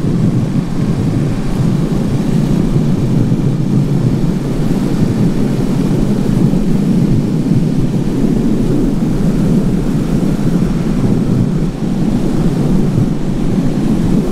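Wind buffeting the microphone of a motorcyclist riding at road speed in gusty wind: a steady, low rushing rumble without pauses.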